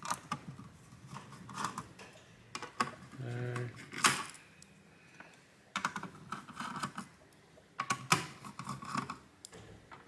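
Small screws being undone with a hand screwdriver on a graphics card and set down on a work mat: scattered light clicks and taps, the sharpest about four seconds in.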